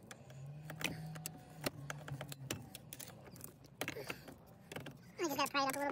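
Scattered clicks, taps and knocks of a hand tool and plastic and metal parts being worked at a car's steering column, with a low hum through the first half.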